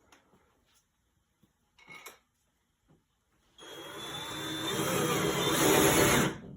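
Power drill with a Phillips bit on an extension driving a bolt through a metal bracket into a wall stud: the motor runs for about three seconds, getting louder as it works, then stops abruptly. A few light handling knocks come before it.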